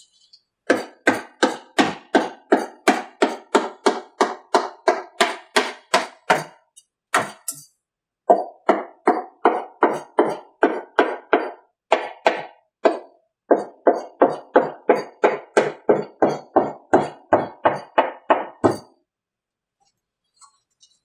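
Soft-faced plastic mallet knocking on a wood-braced fiberglass mold, a steady run of sharp knocks at about three a second with a couple of brief pauses. The tapping works the cured male mold loose from the female mold.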